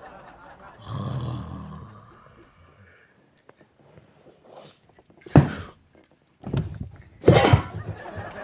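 A man's put-on snoring, loud and growly: one long, low snore about a second in, then several short, sharp snorts in the second half.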